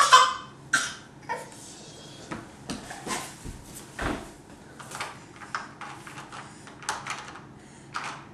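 Irregular knocks and bumps, one or two a second, from a baby crawling on a hardwood floor, his hands and knees knocking on the boards.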